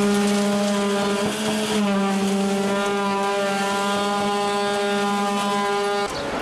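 Concrete vibrator running in freshly poured concrete, a steady electric hum at one constant pitch that shifts slightly about two seconds in and cuts off suddenly near the end. The vibrator is consolidating the concrete so it fills around the rebar in the formwork.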